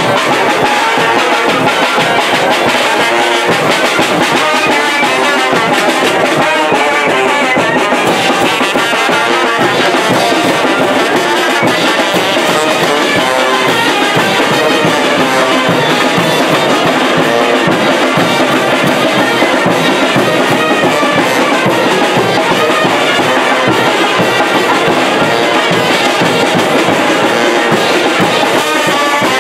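A live brass band playing chinelos dance music, with a bass drum and hand cymbals keeping the beat.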